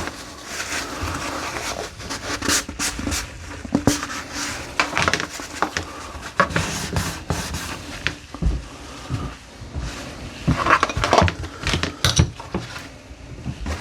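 Workshop handling noises: irregular knocks, clicks and rustling as objects are picked up and set down, busier in a few clusters.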